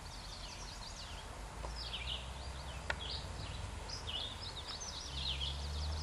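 Several birds chirping and singing, short quick sweeping calls repeating one after another, over a low steady rumble.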